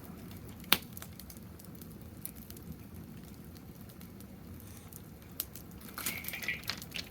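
Wood fire crackling in a fire stand, with scattered sharp pops and one loud pop about a second in.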